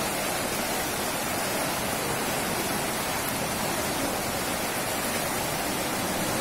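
Fast-flowing floodwater rushing steadily, an even wash of churning water.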